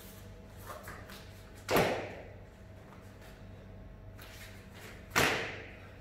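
Two sharp slap-like impacts, about three and a half seconds apart, each dying away with a short echo off the hall.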